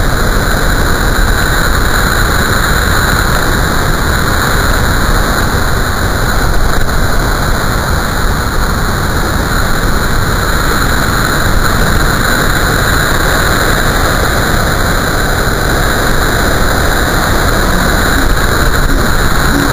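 Heavy storm surf breaking and washing over the rocks at a river mouth, a loud, steady roar of crashing white water.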